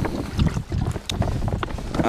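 Wind buffeting the microphone in low, gusty rumbles, with a few short light clicks over it.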